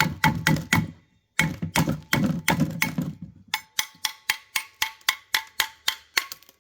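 Hammer tapping on a steel brake caliper bracket to knock the old brake pads out of their clips, in a rapid run of strikes about four or five a second, with a short pause about a second in. From about halfway on, the metal rings with a clear note after each strike.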